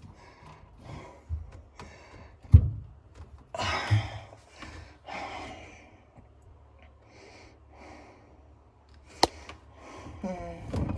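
Someone working under a sink, tightening plastic drain fittings by hand: a loud thump, heavy breathy exhales, and a sharp click a little after 9 s.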